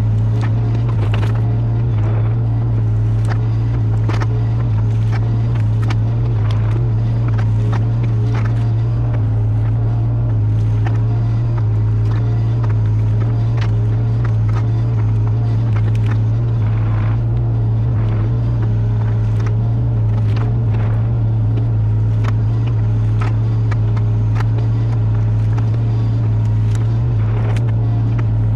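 Caterpillar 305 mini excavator's diesel engine running steadily under working load while the arm rakes brush, with frequent sharp clicks and knocks scattered through it.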